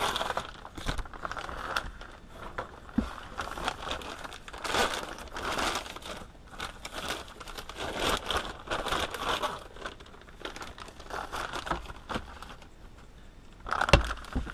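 Clear plastic wrapping crinkling and rustling in irregular bursts as a new ball screw is unwrapped and handled. There is a sharp knock near the end.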